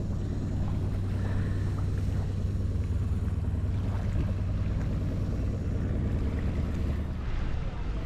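Motorboat engine running steadily, a low even drone, with some wind and water noise.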